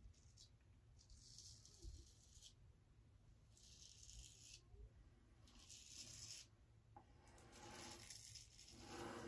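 Straight razor scraping through lathered beard stubble: about four faint strokes, each about a second long.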